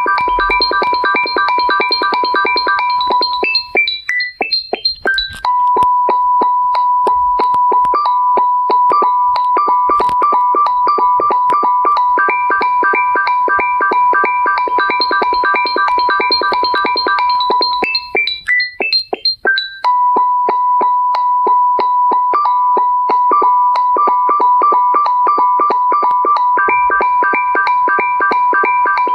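Electronic keyboard ringtone tune: fast repeated high notes, mostly on one pitch with a few neighbouring notes, looping about every 14 seconds. Twice the repeats break off for a short run of rising notes.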